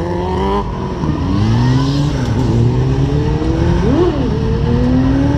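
Sport motorcycle engine revving as it is ridden, its pitch dropping and climbing several times, with a quick sharp throttle blip about four seconds in.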